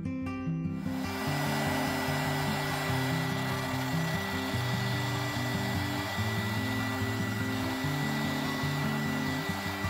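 Mini handheld heat gun running, a steady rush of blowing air with a thin whine, switched on about a second in and cutting off near the end as hot air is blown over wet epoxy resin.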